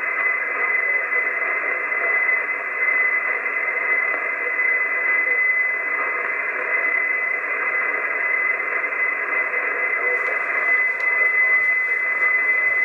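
Icom IC-751 HF receiver tuned to the 6516 kHz marine channel with no station transmitting: steady band-limited static hiss with a single steady high tone through it.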